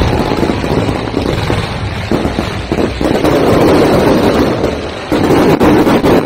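Fireworks going off: a dense, unbroken run of pops, crackles and bangs from aerial shells bursting overhead, getting louder about three seconds in and again about five seconds in.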